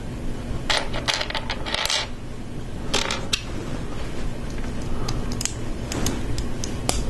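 Plastic LEGO pieces clicking and clattering as small parts are handled and pressed onto a brick-built model. The clicks come in several short runs, the loudest about a second in.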